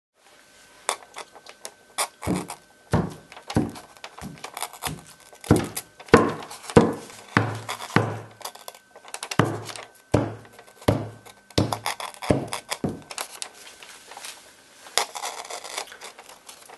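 A spatula repeatedly slapping and pressing raw minced meat flat against a wooden board. The dull wet thuds come irregularly, about one to two a second, some much louder than others.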